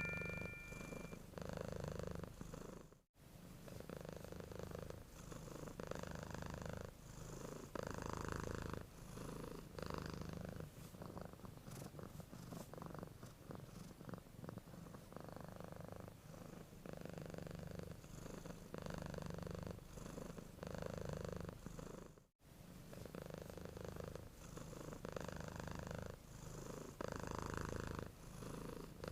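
Domestic cat purring in its sleep: a soft, rhythmic purr that swells and fades with each breath, about once a second, broken by two very short dropouts.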